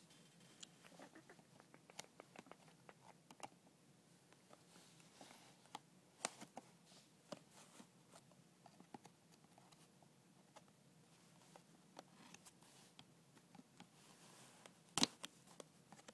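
Faint, scattered clicks and crinkles of retail packaging being handled and worked open, with a louder snap near the end.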